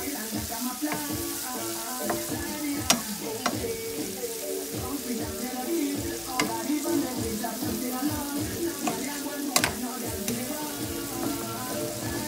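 Sliced bell peppers and onions sizzling in a frying pan in oil and curry seasoning, stirred with a wooden spoon, with a few sharp knocks of the spoon against the pan.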